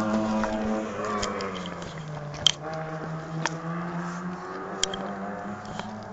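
Engine of a vehicle on a mountain road far below, running with a steady drone. Its pitch sags after a second or so and climbs again near the end as it labours uphill. A few sharp clicks cut through, the loudest about two and a half seconds in.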